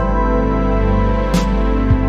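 Instrumental background music with long held notes and two short, sharp hits in the second half.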